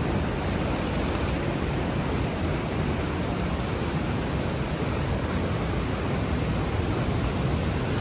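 Manavgat waterfall's water rushing steadily, an even unbroken roar of falling and churning river water.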